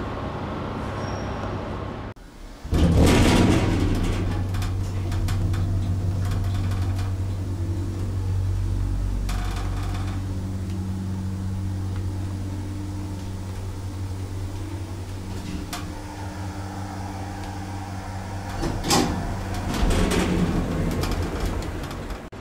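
Cercanías electric commuter train at the platform, its electrical equipment humming steadily. A loud hiss comes a few seconds in, and two shorter hisses come near the end.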